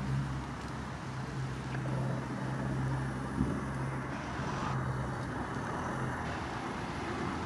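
Outdoor traffic ambience: an even background rush with a steady low hum that cuts out about six seconds in, and one small knock about halfway through.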